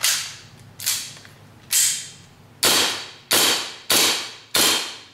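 Tokyo Marui Hi-Capa gas blowback airsoft pistol with a heavy CNC steel slide, fired seven times on a CO2 magazine, each shot a sharp crack with the slide cycling. The slide runs its full stroke on CO2 despite its extra weight.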